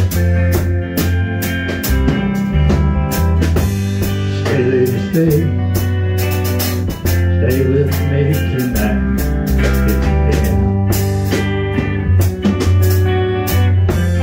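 Blues-rock music: a guitar played over a steady drum beat and a bass line, with a few wavering lead phrases in the middle.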